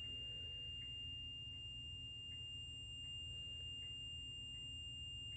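A faint, steady high-pitched electronic tone over a low hum, with faint small ticks about every three-quarters of a second.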